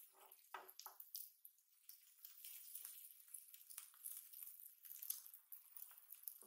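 Okonomiyaki and a fried egg sizzling faintly on an electric griddle, with metal spatulas scraping and tapping on the plate as a pancake is lifted and set down.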